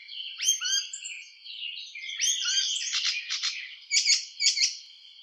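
A Hippolais warbler singing a fast, varied jumble of chattering and whistled notes in several phrases, with the sharpest, loudest notes near the end.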